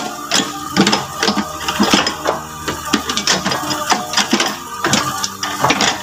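Yanmar mini excavator's diesel engine running steadily while the bucket scoops and lifts mud and debris, with many irregular clanks and knocks from the bucket and its linkage.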